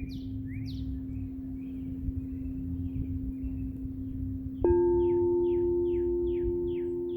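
Singing bowls ringing: one bowl sustains a steady low tone, and about two-thirds of the way through another bowl is struck and rings out with a higher tone, slowly fading. Birds chirp over it, a run of short, quick, falling calls about two or three a second near the end.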